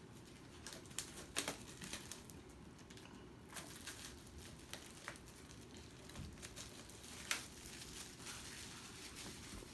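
Plastic shrink-wrap being peeled and crinkled off a Blu-ray Steelbook case, in irregular crackles and clicks.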